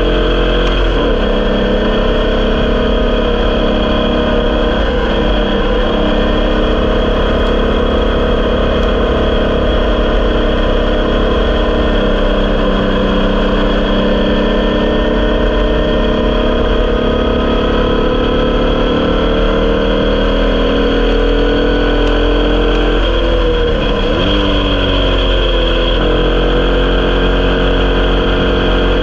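Onboard sound of a 1200cc Volkswagen air-cooled flat-four in an Elfin Crusader Formula Vee, running hard at racing revs. Its note rises and falls slowly, with a short dip and climb back just after the start and another about three-quarters of the way through.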